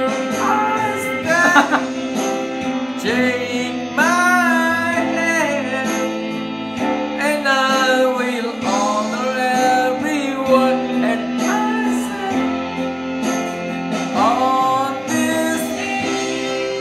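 A man singing into a karaoke microphone over a backing track with guitar, holding long notes that slide up and down in pitch.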